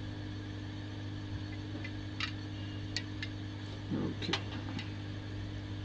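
Hot air rework gun's blower running with a steady hum and rush of air while it heats a shorted MOSFET to desolder it. A few small sharp clicks come about two to three seconds in, and a brief spoken "okay" near the end.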